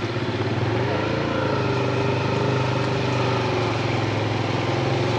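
Motorcycle engine running as the bike is ridden, its note rising a little about a second in and then holding steady.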